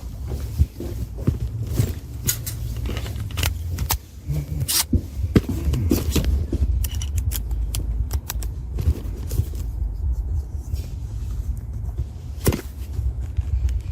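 Irregular clicks, knocks and scrapes of hands handling objects, over a low steady rumble.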